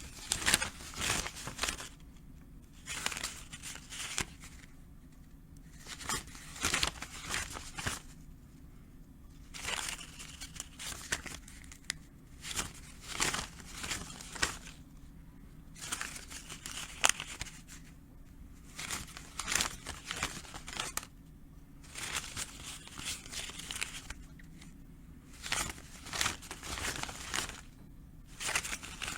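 Paper banknotes rustling and crinkling as they are handled, in repeated bursts of one to two seconds with short pauses between.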